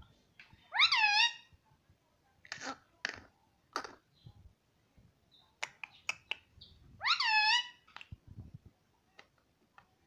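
Indian ringneck parrot giving two loud, drawn-out calls, the first about a second in and the second about seven seconds in. Short clicks and brief chirps come between them.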